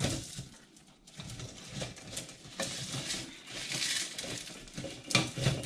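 A block of dried instant noodles being broken and crumbled by hand over a plastic bowl: dry, irregular crackling and crunching, with a louder crack near the end.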